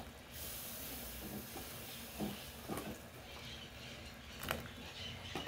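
A pot of beef-foot broth simmering with a steady hiss, with a few short knocks and splashes as chunks of cassava go into the pot.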